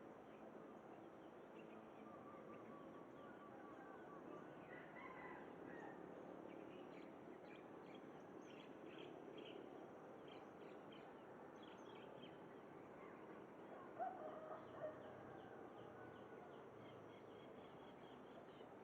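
Faint outdoor birdsong: small birds chirping over and over, and a louder short zebra dove coo about fourteen seconds in.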